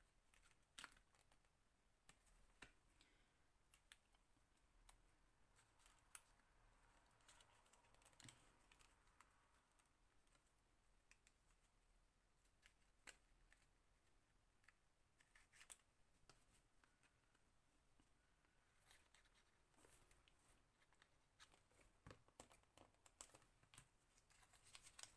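Near silence, broken by scattered faint clicks, taps and rustles as hands handle card and paper embellishments.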